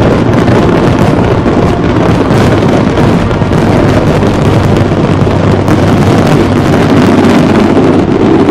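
Loud fireworks barrage: a dense, unbroken run of bangs and crackling with no gaps between bursts.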